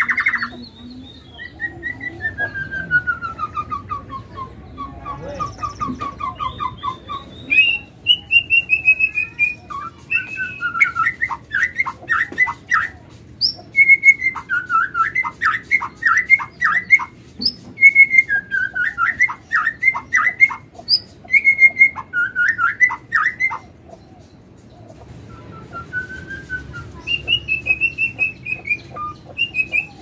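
Caged songbird singing whistled phrases of sliding notes and quick trills. Through the middle, its loudest phrase, a run of sharp falling notes, repeats every two to three seconds. After a short pause near the end, softer phrases follow.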